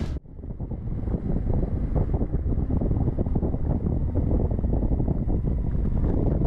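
Wind rushing and buffeting over the microphone on a moving Yamaha XT1200Z Super Ténéré motorcycle, with a steady low rumble underneath. It cuts in abruptly just after the start.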